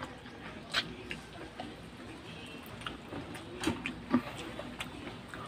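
Mouth sounds of eating chicken feet adobo by hand: scattered soft clicks and smacks of chewing and sucking on the bones, a few louder ones about three and a half to four seconds in.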